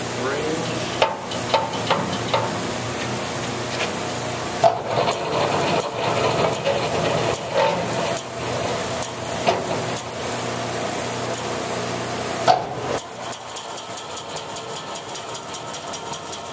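Grob 4V-24 vertical bandsaw running, a steady mechanical hiss and rattle with scattered clicks and knocks. About 13 seconds in it drops suddenly to a quieter, even pulsing of about four to five beats a second.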